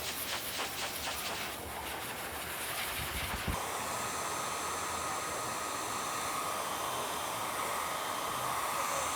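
A high-velocity dog grooming dryer blowing: a rushing hiss that flutters unevenly at first. About three and a half seconds in it settles into a steady hiss with a held whine.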